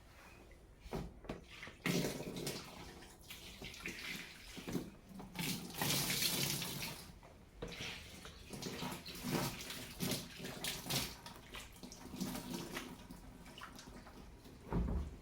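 Water splashing and running in irregular surges, with scattered knocks and clatter of things being handled.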